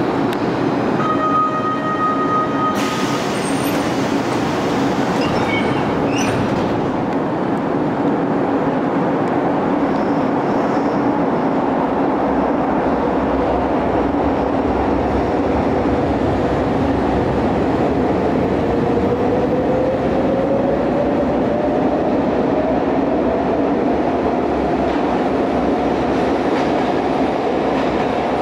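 Milan Metro Line 2 ET245 train running at an underground platform, a steady rumble of wheels and motors throughout. A held tone sounds for about two seconds near the start, and a brief high squeal comes a few seconds later. From about two-thirds of the way through, a whine rises steadily in pitch as the train gathers speed.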